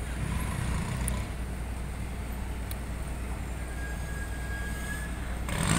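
Steady low rumble of idling truck engines, with a faint thin whine partway through and a short burst of hiss near the end.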